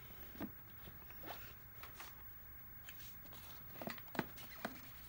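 Faint handling sounds of a pleated shop-vac cartridge filter being slid down over the motor on its bucket lid: a few soft taps and scuffs of the filter's rim, a little closer together about four seconds in.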